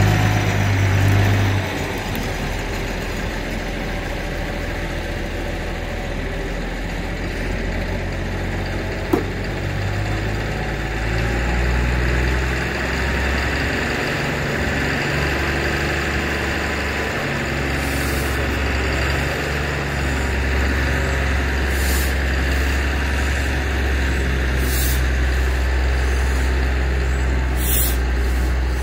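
Diesel engine of a front-end loader running steadily under load as it tows a locomotive on a chain. Its drone deepens and grows a little louder about eleven seconds in, and a few short hisses come in the second half.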